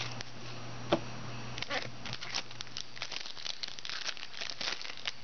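Hands handling trading cards and a foil pack wrapper: light crinkling and many small clicks, with one sharp tap about a second in.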